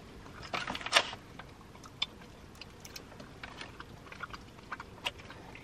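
Two people biting into and chewing soft mochi ice cream balls: faint mouth clicks and chewing, with a short breathy burst about a second in.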